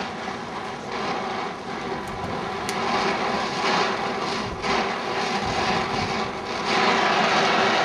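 Cobra oxy-fuel welding torch flame hissing steadily against steel being heated to a molten puddle. It gets louder near the end.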